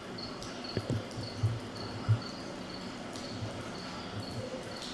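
An insect chirping steadily, a short high chirp repeating about three times a second. A few low thuds fall in the first half.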